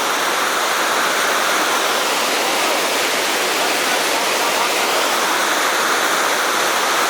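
Waterfall: a loud, steady rush of falling water close by.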